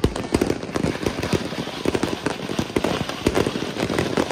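Many fireworks going off at once: a dense, unbroken run of pops and bangs, several a second, with no pause.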